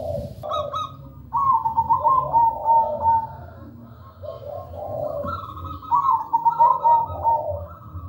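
Zebra doves (perkutut) cooing in their rolling, trilling song. Two long phrases start about a second and a half in and about six seconds in, with shorter coos between them.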